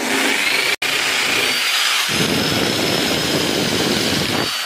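Electric rotary polisher with a foam pad running on a car's painted hood, a steady high whine. From about two seconds in a heavier, lower rumble joins and drops away again near the end.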